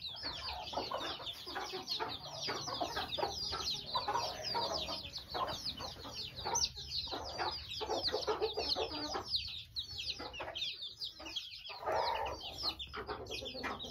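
A flock of chicks peeping nonstop in quick, short falling chirps, with hens clucking in irregular bursts underneath.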